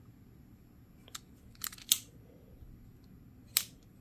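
Milwaukee press-and-flip utility knife's spring mechanism snapping open and shut: a couple of light clicks, a sharp snap just before two seconds in, and another sharp snap near the end.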